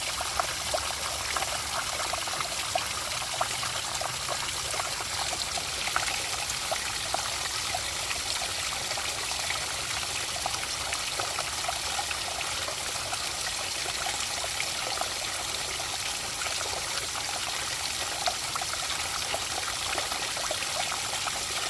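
Water trickling and babbling steadily, with a constant patter of small splashes.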